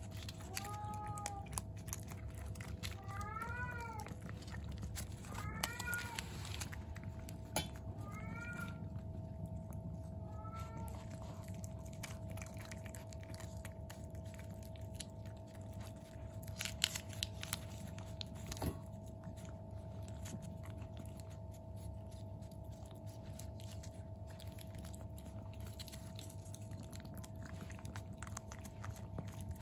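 Kittens meowing: about six short mews that rise and fall in pitch in the first ten seconds or so, then small wet clicks and smacks of the kittens licking a lickable treat from its tube. A steady faint hum runs underneath.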